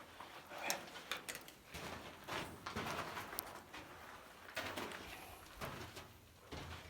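Irregular scuffs, scrapes and clicks of feet and hands moving over loose rock, with several sharp ticks about a second in.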